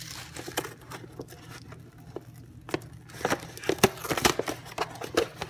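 Paperboard carton of a packaged soup bowl being pried and torn open by hand: scattered crackles and sharp clicks of the cardboard, busier and louder from about three seconds in.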